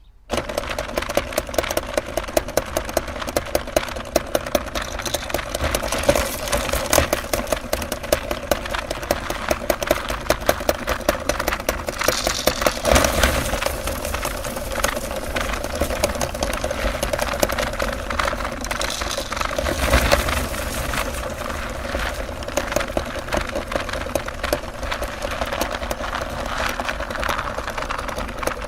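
Electric meat grinder running and crunching hard candy, a steady motor sound laced with a dense crackle of clicks. It starts suddenly just after the beginning and gets louder for a moment twice, about halfway and two-thirds of the way through.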